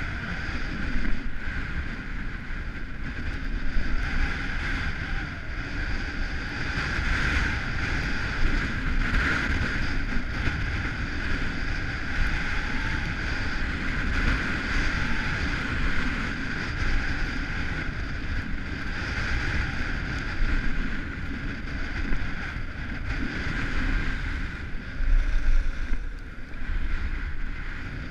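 Wind buffeting the microphone of a skier's action camera during a downhill run, with the steady hiss and scrape of skis sliding over packed snow; the level swells unevenly as speed and turns change.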